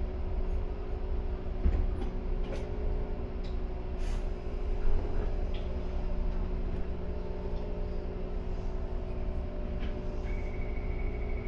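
Ryutetsu 5000-series electric train running between stations, with a steady rumble and a level motor hum. A few short sharp clicks come in the first few seconds, and a thin high tone starts near the end.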